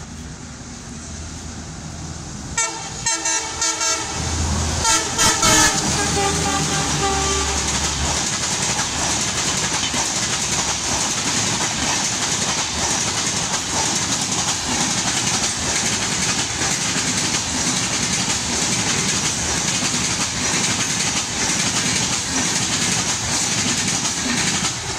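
WDM-3A ALCO diesel locomotive passing at speed with a passenger train: over the engine's low drone its horn sounds in several short blasts, about three seconds in and again around five seconds. The coaches then rush past with steady rail clatter and wheel noise.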